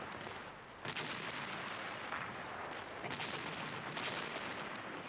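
Artillery fire and shell explosions: a dense, continuing din of blasts, with sharp reports about a second in, about three seconds in and about four seconds in.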